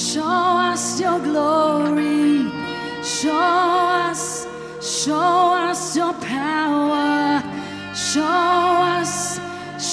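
Worship music: a singer holding long, wavering notes in repeated phrases over a sustained keyboard-and-band backing with regular cymbal hits.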